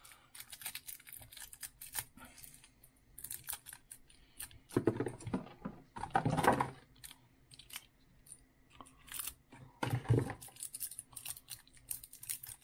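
Clear plastic wrapping being cut and torn off batteries by hand: irregular crinkling, rustling and small clicks, with a few louder rustles about five, six and ten seconds in.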